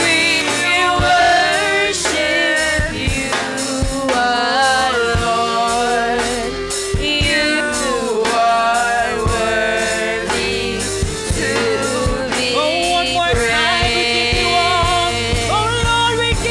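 Live gospel praise song: women singing into microphones over a live band with a drum kit keeping a steady beat.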